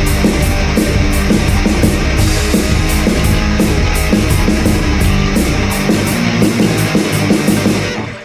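Recorded punk band playing a fast, heavy song: distorted electric guitar, bass and drums. The low end thins out about six seconds in, and the music stops abruptly just before the end.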